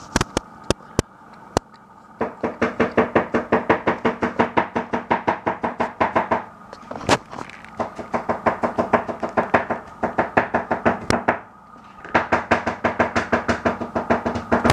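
Lid rattling on a covered pan, tapping about six times a second with a steady ringing tone, in three long runs with short pauses between; a few scattered clicks come first.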